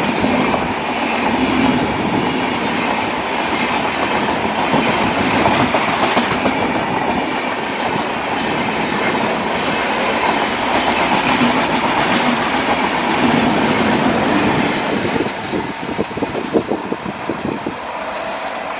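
LHB passenger coaches of an express train passing at speed: a steady rush of wheels on rail with clickety-clack over the rail joints. About fifteen seconds in the rush thins as the last coaches go by, separate wheel clicks stand out, and the sound fades.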